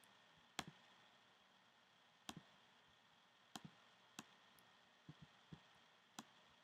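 Faint, scattered clicks of a computer keyboard and mouse, about a dozen, some in quick pairs, over quiet room tone.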